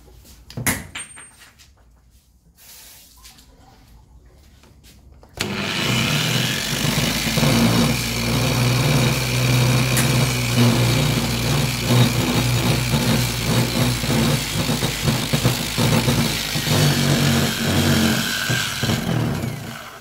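Angle grinder rigged as a polishing machine switches on about five seconds in and runs steadily, while a mineral sample held by hand is polished against the abrasive paper on its spinning disc. A single knock comes just before, near the start.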